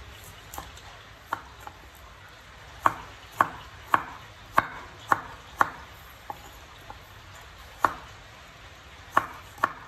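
Cleaver chopping broccoli on a wooden cutting board. About fourteen sharp knocks of the blade hitting the board come in an uneven rhythm, with a quicker run of about two a second in the middle and a few more near the end.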